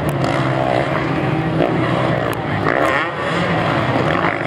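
Several motocross dirt bikes revving hard as they climb a hill. Their overlapping engine notes rise and fall in pitch with the throttle.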